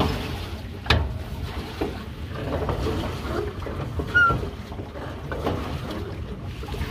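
Wind rumbling on the microphone out on a boat on the lake, with a sharp knock about a second in and a brief high chirp a little after four seconds.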